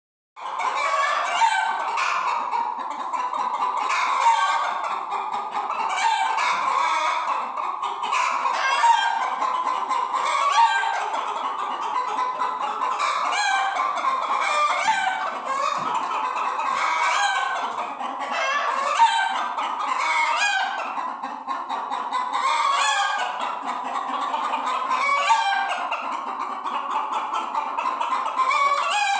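A flock of chickens clucking continuously, many calls overlapping, with louder single calls standing out every few seconds.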